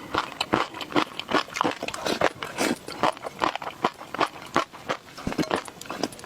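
Close-miked ASMR eating: chewing with many quick, sharp clicks and crunches, several a second.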